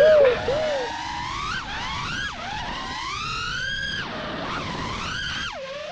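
Brushless motors and props of a 5-inch FPV freestyle quadcopter whining over a hiss of prop and wind noise, the pitch climbing and falling sharply several times as the throttle is punched and chopped.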